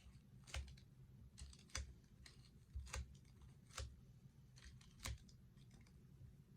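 Faint, irregular clicks and light taps, about seven over several seconds, with quiet between them.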